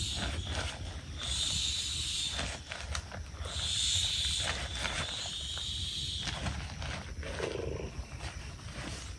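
Air hissing out of the valve of an inflatable sleeping pad as it is squeezed to deflate it, in repeated bursts about a second long with short pauses between pushes. A brief lower sound comes about three quarters of the way through.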